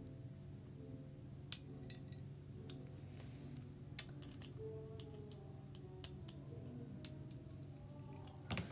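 MF3RS2 3x3 speedcube being turned by hand after its screws were loosened: a few sharp plastic clicks from its layers, the loudest about one and a half seconds in, over a low steady hum.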